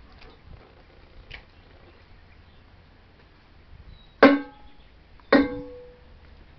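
Two sharp knocks about a second apart, each followed by a short ringing tone, as of something hard being struck.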